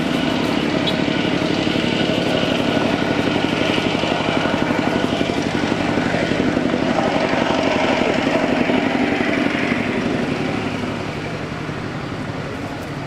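A small engine running steadily. It grows a little louder through the middle, then fades over the last few seconds, as if passing by.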